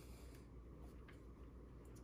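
Near silence: a low steady hum of room tone with a few faint ticks.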